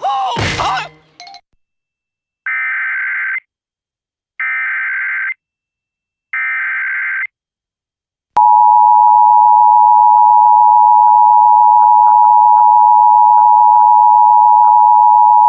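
Emergency Alert System header: three bursts of SAME digital data tones, each about a second long and about a second apart. Then, with a click, the steady two-tone EAS attention signal begins and holds, marking the start of an emergency alert broadcast.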